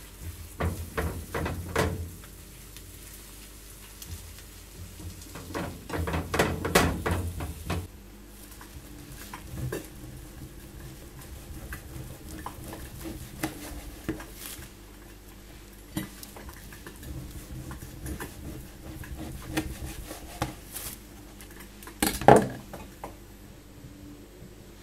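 Kitchen clatter: pots, pans and cutlery knocking and clinking in short bouts. There is a longer run of clatter a few seconds in, scattered single knocks after it, and one loud clang near the end.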